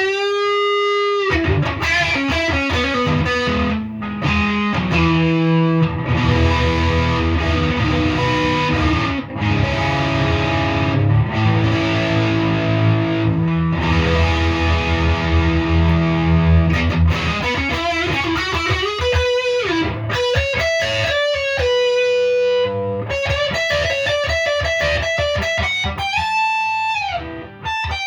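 Gibson Les Paul Standard '50s with P-90 pickups played through an overdriven amp. Held, ringing chords through the middle give way to single-note lead lines with string bends near the end.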